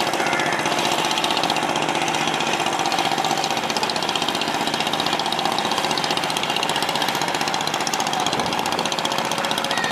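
Boat engine running steadily with a fast, even knocking beat.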